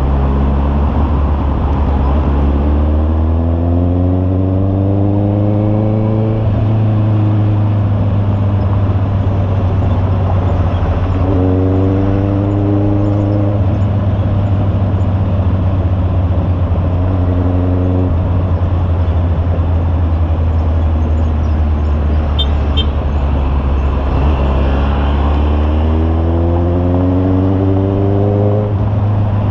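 Honda CB650R inline-four engine with an aftermarket muffler, heard while riding. Over a steady low drone, the exhaust note climbs in pitch under acceleration and then breaks off at the shift, four times: about two seconds in, near the middle, again a few seconds later, and near the end.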